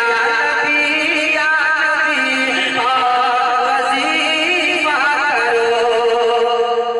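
A man singing a naat, a devotional praise poem, into a microphone in one long, ornamented melodic line whose pitch wavers and slides.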